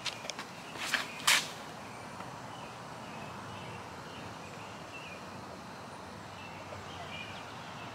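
Quick scuffs of shoes on a concrete tee pad during a disc golf run-up and throw, the loudest about a second in. After that, small birds chirp over a steady outdoor background.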